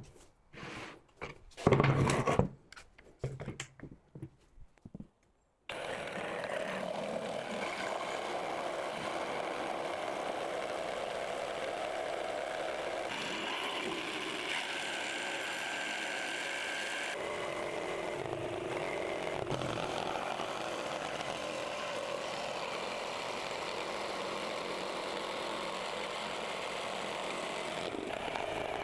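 A few knocks and wood-handling sounds, then an electric power tool starts abruptly about six seconds in and runs steadily, as in machining a hinge groove in a wooden door jamb.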